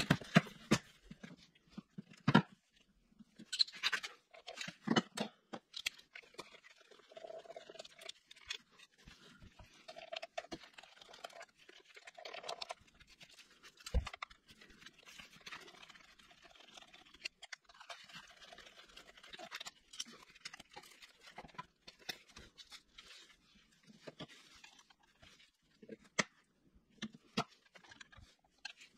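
Hand tools being handled: irregular clicks, knocks and rattles as a plastic tool case is opened and metal sockets and a wrench are picked out and set down, with rustling of work gloves between them.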